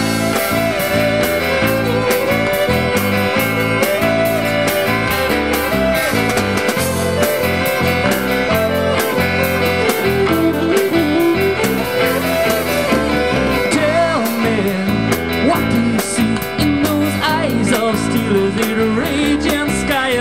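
Live rock band playing an instrumental passage: a fiddle carries a wavering melody over electric guitar, bass guitar and a steady drum beat.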